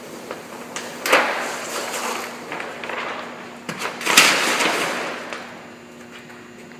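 Paper backing being peeled off a large vinyl decal, rustling and crackling, with two loud rips about one second and four seconds in, each trailing off.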